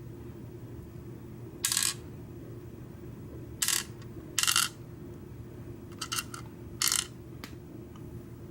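Small metal key pins from a Schlage deadbolt's plug clinking as they drop onto a hard surface: about five short, separate clinks a second or so apart, with a couple of lighter ticks between the last two.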